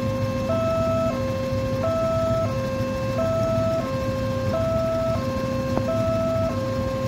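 Railway level-crossing warning alarm sounding a steady high-low two-tone, one high-low pair about every 1.3 seconds, the signal that the barriers are down and a train is coming.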